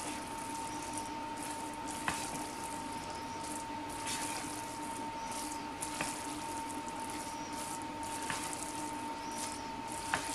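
Thick, creamy risotto being stirred with a narrow spatula in a plastic Tupperware Micro Minute pressure-cooker pot: soft wet squishing, with a light tick about every two seconds. A faint steady hum runs underneath.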